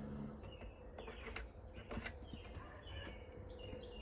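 Faint bird chirps, short and falling in pitch, several times, with a few light clicks of things being handled; a low hum stops just after the start.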